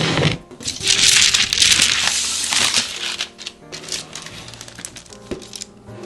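Loud crinkling, crushing handling noise lasting about two seconds, fading to scattered light clicks, over soft background music.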